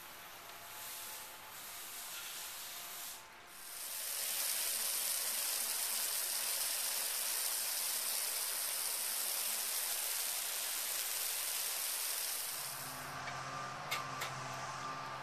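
Hiss of water spraying from a roof-cleaning hose wand, becoming loud about four seconds in and dropping away after about twelve seconds. A steady low hum and a couple of clicks follow near the end.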